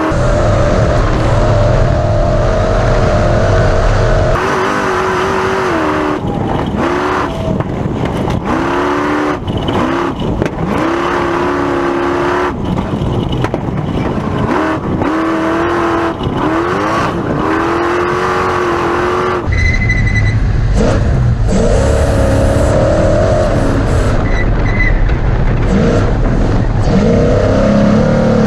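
Class 1450 Ford Ranger race truck's engine revving hard and lifting off again and again, its pitch climbing and cutting back every second or two. At the start and again from about two-thirds of the way in, it runs at a steadier pitch under a heavy low rumble.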